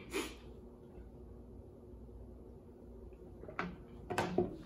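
Plastic food containers set down on a wooden coffee table, giving a few light knocks near the end. A short, sharp breath is heard just after the start.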